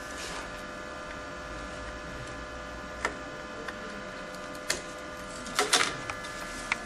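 Sharp plastic clicks and taps from flat ribbon cables and connectors being handled on a printer head board: single clicks about three seconds in, near five seconds and near the end, and a quick cluster just before six seconds, the loudest part. A steady machine hum with a few fixed tones runs underneath.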